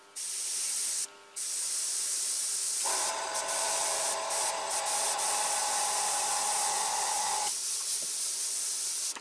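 Airbrush hissing steadily as it sprays paint, cutting out briefly twice near the start as the trigger is let go. A lower hum joins for a few seconds in the middle.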